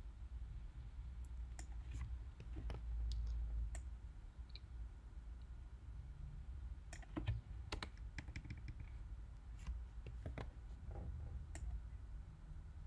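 Irregular light clicks of computer keyboard keys and a mouse, with a quick run of clicks about seven to eight seconds in, over a low steady hum.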